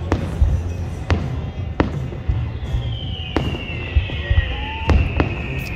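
Aerial fireworks going off, about seven sharp bangs at uneven spacing, with a long high whistle gliding slowly down in pitch from about halfway through.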